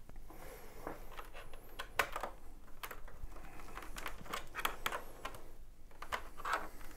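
Small clicks, taps and scrapes of a DisplayPort cable connector being fiddled into the port on the back of a computer monitor, with a sharper click about two seconds in.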